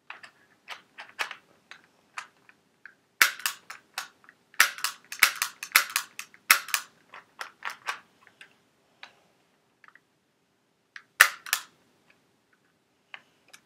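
Handling of a Beretta P4 Storm spring airsoft pistol and its packaging: a dense run of sharp clicks and clacks about three to eight seconds in, lighter scattered clicks around it, and two more sharp clicks about eleven seconds in.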